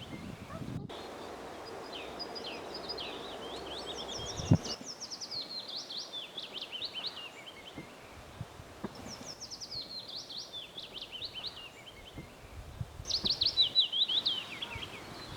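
A songbird singing repeated fast, descending song phrases every few seconds. Low rustling runs beneath it, and a single sharp knock sounds about four and a half seconds in.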